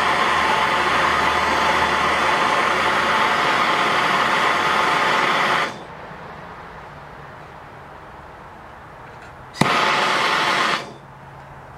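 Handheld gas torch flame hissing steadily as it heats an aluminum tank for brazing, cut off about six seconds in. Near the end a sharp click, and the torch hisses again for about a second before stopping.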